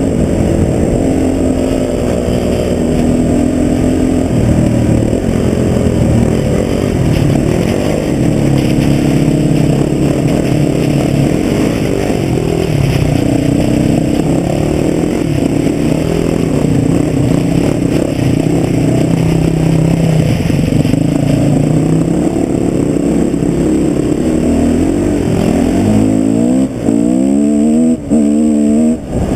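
Husqvarna TE 250 enduro motorcycle's single-cylinder engine running under way on a dirt track, its pitch rising and falling with the throttle. Near the end it revs up in several quick rising sweeps, with three brief drops in loudness between them.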